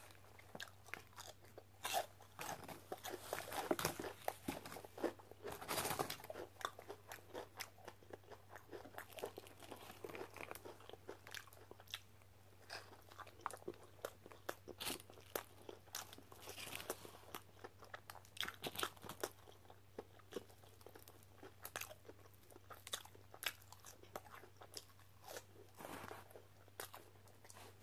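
Close-up eating sounds: bites and chewing of crispy fried fast food, onion rings and curly fries with a sandwich, giving irregular crunches throughout. A faint steady low hum runs underneath.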